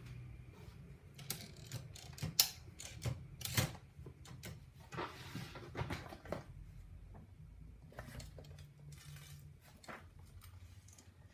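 Olivetti Lettera 35 portable typewriter's mechanism being handled: irregular metal clicks and clacks, the two loudest a couple of seconds in, with short rustling scrapes between them.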